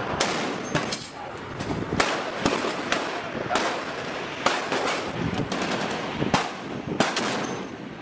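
Large-calibre rifle gunfire: a run of sharp shots, roughly one or two a second at irregular spacing, over a steady rushing background.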